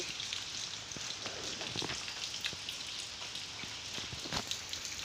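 Rain falling on wet, waterlogged ground: a steady hiss with scattered single drip taps.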